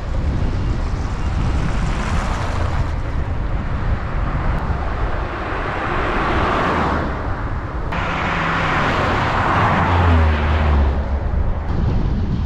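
Road traffic passing over a steady low rumble. Two vehicles swell up and fade, about six and about nine to ten seconds in; the second carries a low engine hum.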